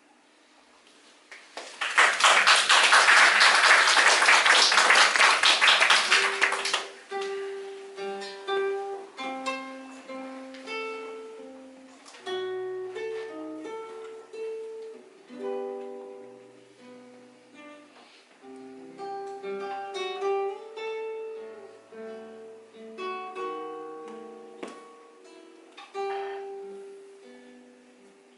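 Acoustic guitar played solo. It opens with about five seconds of loud, rapid strumming, then turns to a melody of single picked notes.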